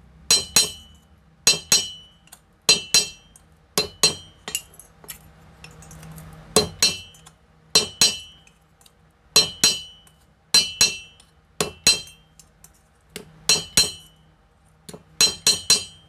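Small hammer tapping the sheet-metal tabs of an electric cooler motor's bush (sleeve bearing) holder to straighten them: sharp metal-on-metal strikes with a short ringing, mostly in quick pairs about once a second, with a quicker run of three or four near the end.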